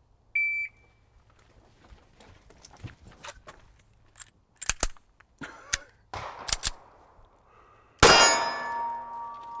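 Shot timer start beep, then a string of handgun shots fired at steel targets, some in quick pairs. The loudest shot comes near the end, and the steel plate it hits rings on with a sustained metallic tone.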